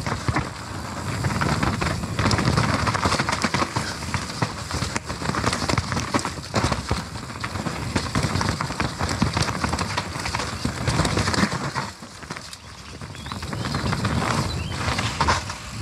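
Nukeproof Mega full-suspension mountain bike descending a wet, rough trail: tyre noise over dirt and rock with a constant rattling and knocking of the bike, easing briefly about twelve seconds in.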